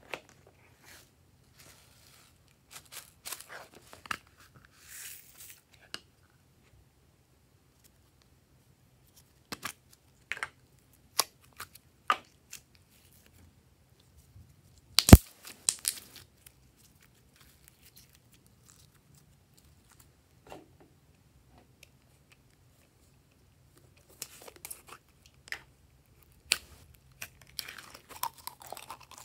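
Glossy slime being stretched and pulled by hand, giving scattered sticky crackles and pops with long quiet gaps. A single sharp snap about halfway through is the loudest sound. Near the end, a denser run of crackles comes as slime is squeezed out of a plastic jar.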